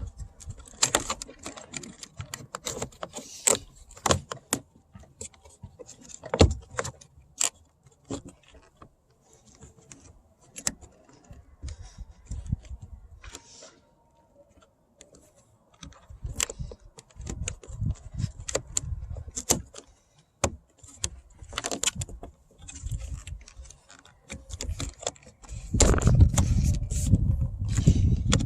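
A plastic car door trim panel being handled and refitted, giving scattered clicks, taps and rattles. Heavier rumbling handling noise comes in partway through and is loudest near the end.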